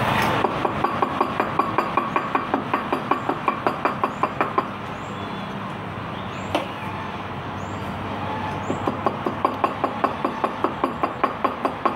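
Kitten chewing food close up: quick, regular crunching clicks at about five a second, in two runs with a pause between them.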